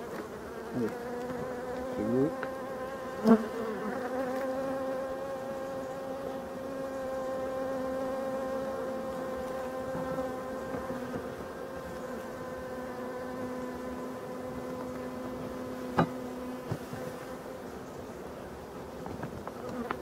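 Colony of black honeybees (European dark bee) buzzing in a steady hum from the open hive, with two sharp clicks, one about three seconds in and one near sixteen seconds.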